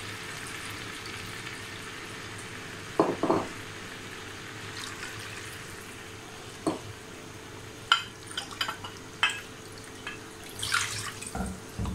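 Water poured from a plastic jug into a glass bowl and tipped into a frying pan of moong dal, over a faint steady hiss from the pan. A couple of knocks come about three seconds in and a cluster of clinks and knocks around eight to nine seconds, as the jug, bowl and pan touch.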